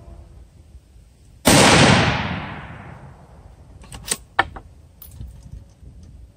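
A single shot from a Savage .243 Winchester bolt-action rifle: a sudden sharp report about a second and a half in that rings and echoes away over about a second and a half. A few quick clicks follow, the bolt being worked.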